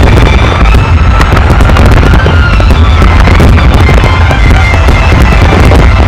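Finale barrage of a large fireworks display: many aerial shells bursting and crackling in rapid, overlapping succession, making a continuous loud rumble of explosions. Music plays underneath.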